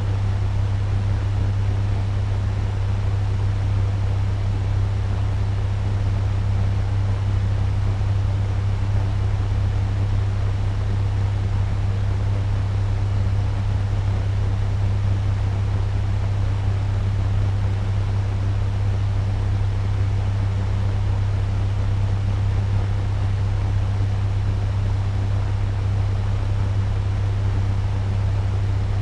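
Turbo fan running steadily at medium speed: an even rush of air over a strong, constant low hum, with no change in level or pitch.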